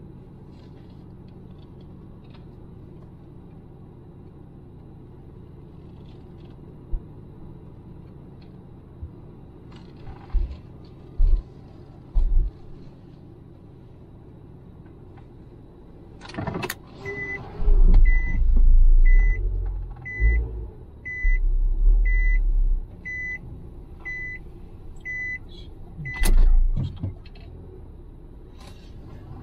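A car's electronic warning chime beeps steadily, about one and a half times a second, for roughly nine seconds. It starts just after a sharp clunk past the middle and stops at a second clunk. A steady low hum runs underneath, and heavy low thuds are the loudest sounds while the chime goes.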